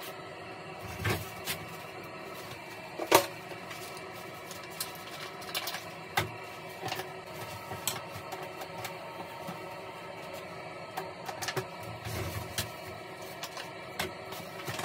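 Scattered light clicks and knocks of hard plastic as a toilet brush is handled in the bowl and the toilet seat and lid are moved, the sharpest knock about three seconds in, over a steady faint hum.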